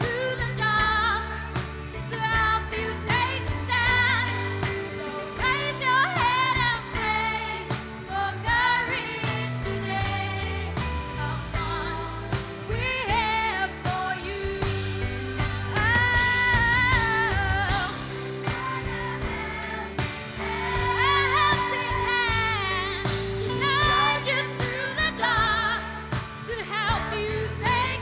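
A song performed live by a band, with a lead singer's voice wavering with vibrato over the instruments and a choir singing along.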